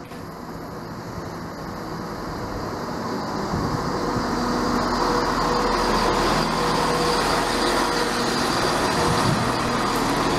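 Class 170 Turbostar diesel multiple unit arriving at the platform, its engines and wheels on the rails growing louder over the first few seconds as it comes alongside, then running steady with a low hum as it passes close.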